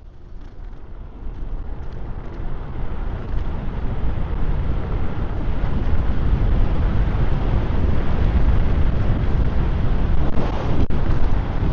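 Wind rushing over the microphone of a rider on a moving electric scooter, growing louder over the first several seconds as speed builds, then holding steady.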